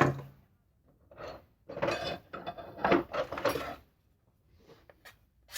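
A sharp click, then a few scraping hand-tool strokes on plastic waste pipe as it is cut down to fit as a sander adapter.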